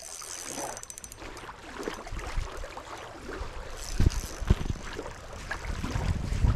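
Small waves lapping at a sandy lakeshore, with wind rumbling on the microphone, louder toward the end, and two dull thumps about four seconds in.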